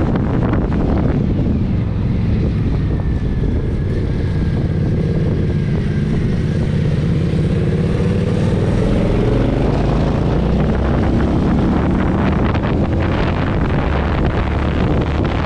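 Indian Scout Sixty's liquid-cooled V-twin running under way, with wind rushing over the microphone. The engine note falls away about a second in and climbs again after about ten seconds as the revs build.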